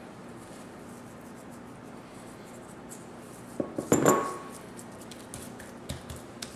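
A small glass bowl clinks sharply and rings briefly about four seconds in, as a hand reaches into it for seasoning. Quiet handling sounds surround it: hands working a raw chicken on a wooden cutting board, with a few light taps near the end.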